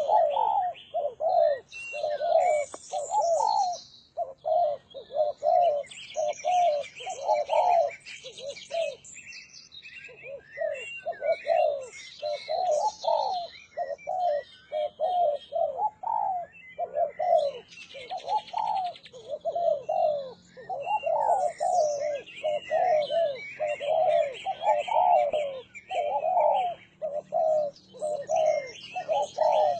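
Spotted doves cooing: a long run of short, repeated coo notes, about two a second, with a brief pause once, over fainter high chirping of small birds.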